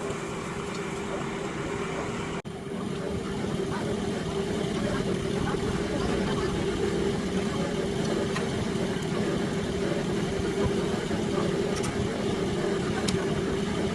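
A machine motor running steadily with a constant hum, briefly cut off about two and a half seconds in.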